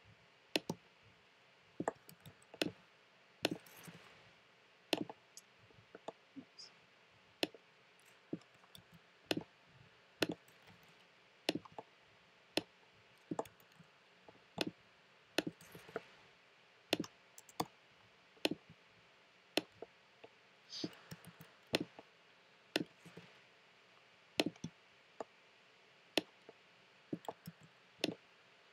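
Computer mouse and keyboard clicks, single and in quick pairs every second or so, as text is selected, copied and pasted.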